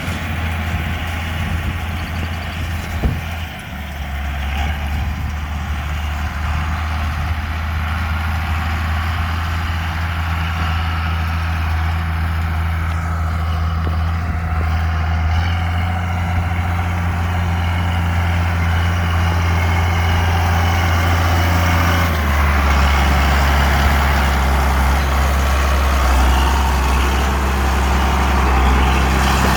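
Farm tractor engine running steadily, as when pulling a hay baler, its note shifting about three and a half seconds in and again about 22 seconds in.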